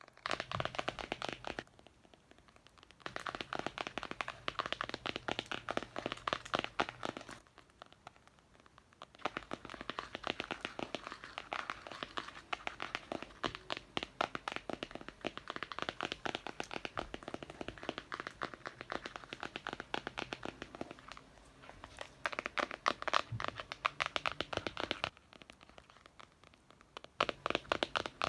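Rapid, aggressive scratching and tapping on a book, in runs of dense quick strokes broken by short pauses: a pause about two seconds in, another around eight seconds, a longer run until about twenty-five seconds, then a last short run near the end.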